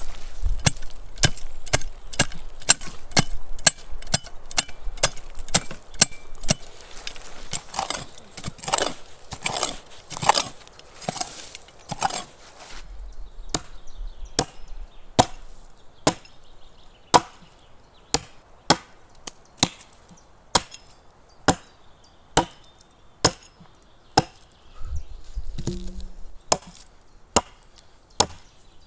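Wood being chopped by hand with a bladed tool: a steady run of sharp chopping strokes, quick at first, then slowing to about one stroke a second from roughly halfway.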